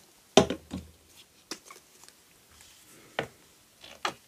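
Small paint containers and craft tools being handled and set down on a work table: a series of separate knocks and clicks, the heaviest with a dull thud about half a second in.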